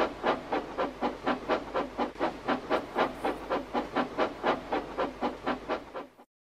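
Steam locomotive chuffing steadily as it pulls away, about four puffs a second, cutting off suddenly near the end.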